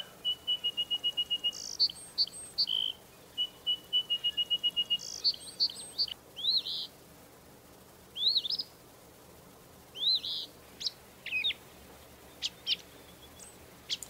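Small songbirds singing. A fast trill of evenly repeated high notes comes twice in the first five seconds, followed by a scatter of short upswept chirps and thin high notes.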